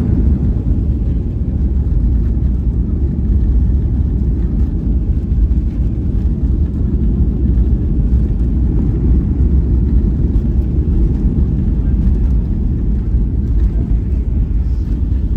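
Steady low rumble inside the cabin of a Boeing 737-800: the CFM56-7B engines and the airflow around the airframe, with no sudden changes.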